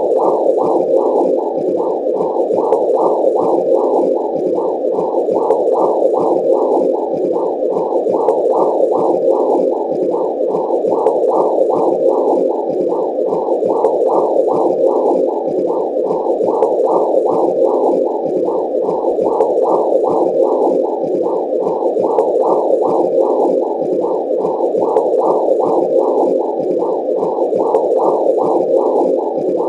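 Womb sound: a muffled, steady whooshing noise that pulses evenly about twice a second, like blood flow heard from inside the womb.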